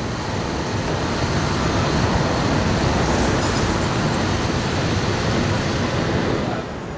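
Hot-air balloon burner firing: a steady, loud roar of rushing flame that cuts off shortly before the end.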